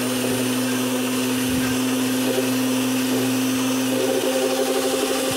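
Mondial Bella Massa stand mixer running at a steady pitch, its twin beaters whisking two eggs in the plastic bowl; a slightly higher note comes up about four seconds in.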